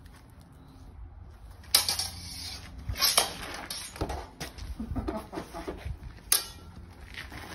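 Steel bastard swords clashing in sparring: sharp metallic clanks, the loudest about two, three and six seconds in, with a run of lighter knocks between about four and five and a half seconds in.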